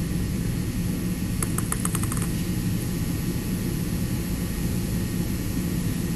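Steady low hum of the playing hall, with a quick run of about eight light ticks about a second and a half in: a table tennis ball bouncing.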